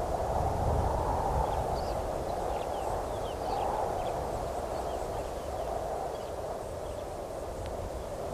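Outdoor ambience: a steady, even rushing noise with a low rumble underneath. From about two seconds in, faint, short, high chirps that drop in pitch are scattered through it.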